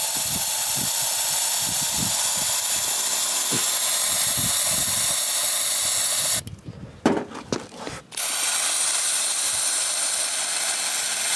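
Aerosol can of brake cleaner spraying with a steady hiss into a cylinder head's combustion chamber, filling it to check whether the valves leak. The spray stops for about a second and a half a little past the middle, then starts again.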